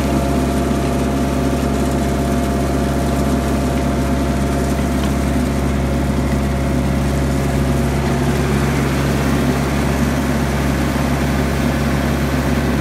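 Mahindra tractor's diesel engine running at a steady speed while it pulls a box blade over slag gravel, heard from the operator's seat.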